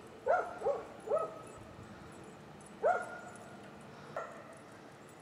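Dog giving short, high yipping barks: three quick ones in a row, then another about three seconds in and a faint one after it.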